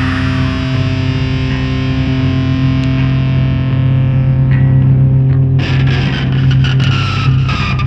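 Black death metal: heavily distorted electric guitar holding a sustained, ringing chord whose upper edge slowly fades. About five and a half seconds in, a new passage breaks in with sharp hits and a high tone that slowly slides down in pitch.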